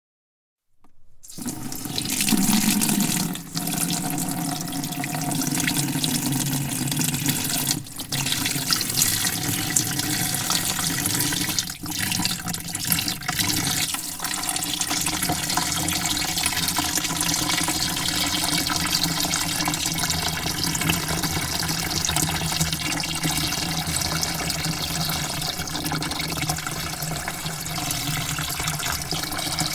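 Water spraying into a bucket. It starts about a second in and then runs as a steady rush, with a few brief dips.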